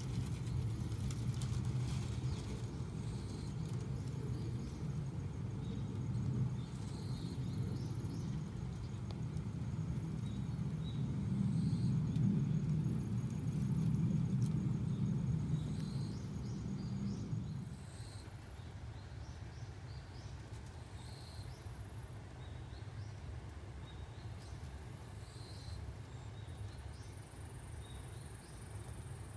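Outdoor background noise with no calls from the nest: a low rumble that drops away about two-thirds of the way through, under short, very high-pitched buzzes that repeat every second or two.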